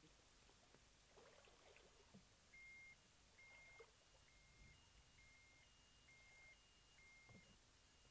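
Smith-Root backpack electrofisher beeping: short electronic beeps about once a second at two alternating pitches, the lower beeps louder through the middle. The repeating tone is the unit's alert that the anode is energized and current is going into the water.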